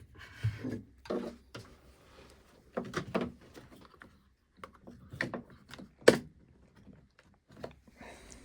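Scattered knocks, clicks and rustling from a small tool and its parts being handled on a bench, with one sharp click about six seconds in; the mini bench grinder is not running.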